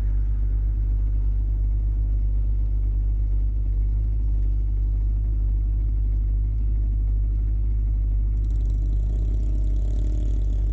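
ATV engine running steadily under a constant low rumble while riding.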